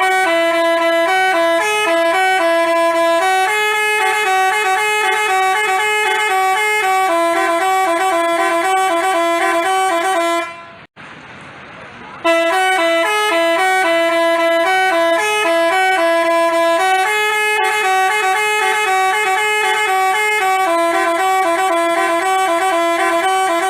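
Telolet basuri multi-tone bus horn playing a stepping melody of several notes at once. It cuts off about ten seconds in, then the same tune starts again a second and a half later.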